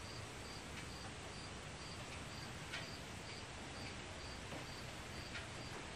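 Faint high insect chirping, cricket-like, repeating steadily about twice a second, with a few soft clicks from a cable connector being handled.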